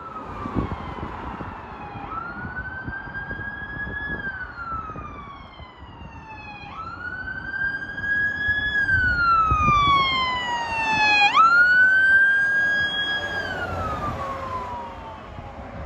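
Fire department squad vehicle's siren on wail. The pitch jumps up sharply about every four and a half seconds, then slides slowly down, over road and engine noise. It grows louder to a peak about twelve seconds in, then fades.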